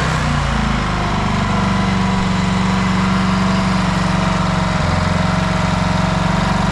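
Small Briggs & Stratton four-stroke outboard motor running steadily just after starting, its note changing slightly about five seconds in. It is running properly again after a new fuel pump (the old one had a leaking diaphragm) and a carburettor cleaning.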